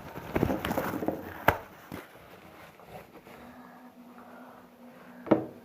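Spoon stirring a soapy mixture fast in a plastic tub. The stirring is busiest in the first second and a half, with a sharp knock of the spoon about one and a half seconds in and another near the end.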